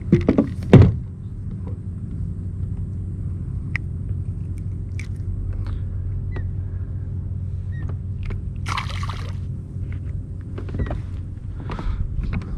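Handling noise on a plastic sit-on-top kayak: a few hard knocks in the first second, then a steady low rumble with scattered light clicks and a short hiss about nine seconds in.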